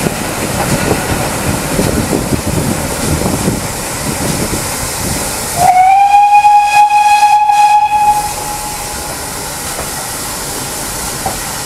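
A train whistle sounds one long blast of about two and a half seconds, sliding up in pitch as it starts, over the rumble of the carriage running along the track.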